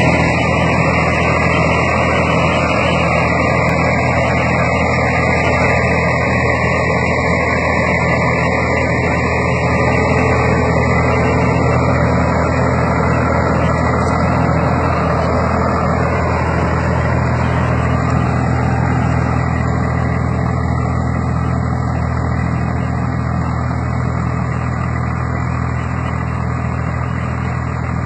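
Tractor engine running steadily under load while it pulls a rotavator (rotary tiller) through the soil. The sound gets slightly quieter near the end.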